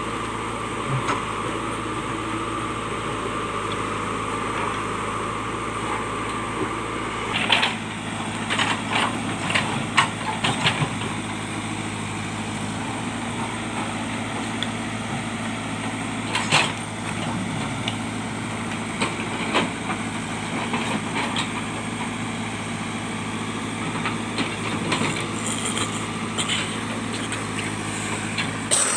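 JCB backhoe loader's diesel engine running steadily while it works, with a few sharp knocks and clanks, several in a cluster about eight seconds in and single ones later.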